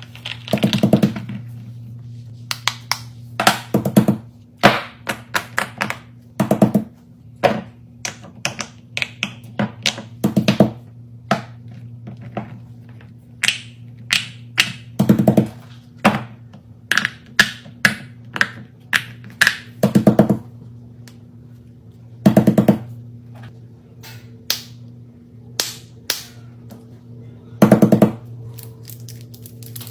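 Irregular sharp taps and clicks of small objects being handled, with a louder, heavier thud every few seconds, over a steady low hum.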